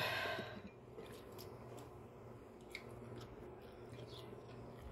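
Quiet close-up chewing of a fish-and-rice meal, with a short noisy mouth sound at the start and a few faint clicks.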